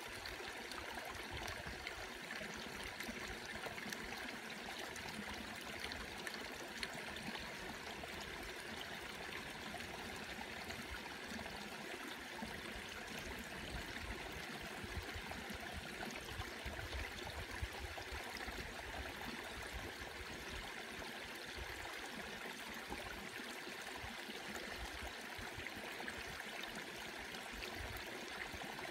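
Small mountain stream running steadily: an even, continuous rush of flowing water.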